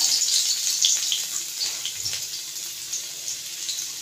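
Chopped garlic sizzling in a little hot oil in a steel kadhai: a steady hiss with scattered crackles, slowly dying down.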